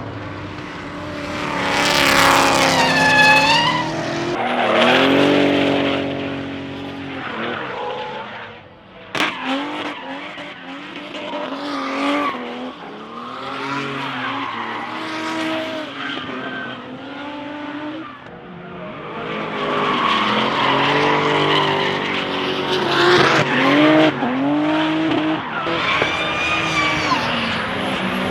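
Several race cars passing one after another at full throttle, their engines revving up and down through gear changes, with tyres skidding and squealing. There is a sharp bang about nine seconds in.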